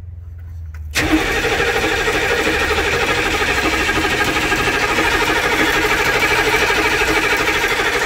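HMMWV diesel engine being cranked by its starter, turning over steadily and rhythmically without catching. The cranking begins suddenly about a second in, and the engine never fires: it still won't start.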